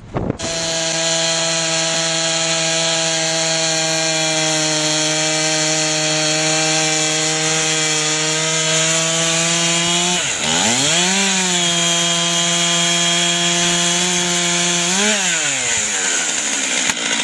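A 70 cc chainsaw mounted on an Alaskan chainsaw mill, running at full throttle as it rips a log lengthwise into a beam. The engine note holds steady, drops sharply about ten seconds in and picks back up, then rises and dips again briefly near the end.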